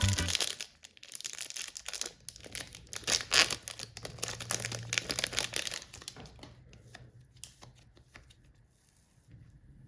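Close, dense crackling and crinkling as hands work a soft, sticky slime-type material. It goes for about six seconds, thins to scattered clicks, and nearly dies away near the end.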